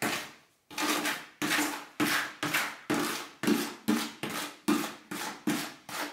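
Repeated scraping strokes inside a plastic bucket of freshly mixed material, about two a second, each one sharp at the start and then fading.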